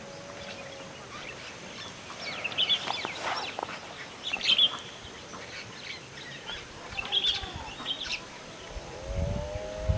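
Birds chirping and calling in several short bursts over a quiet natural background. Near the end a low rumble and a pitched, voice-like sound start.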